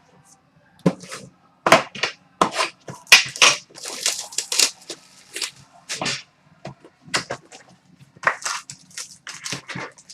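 Trading-card packaging being torn open by hand: a quick irregular series of sharp crinkling and ripping strokes of plastic wrap and pack wrappers, busiest in the middle.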